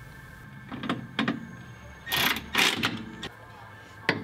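Light clicks and knocks of metal suspension parts and tools as a rear sway bar and end link are worked into place under a car. About two seconds in come two short, louder harsh bursts.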